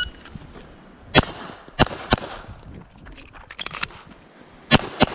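Glock 44 .22 LR pistol firing: one shot about a second in, then two quick shots, a pause with faint metallic clicks of a magazine reload, and two more quick shots near the end.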